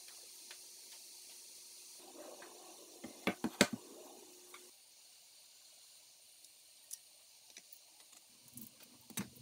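Handling noise from the aluminum CNC router frame and gantry parts as they are set in place: a quick cluster of sharp metal clicks and knocks about three seconds in, the loudest part, over a steady hiss. A few lighter clicks and a soft knock follow near the end.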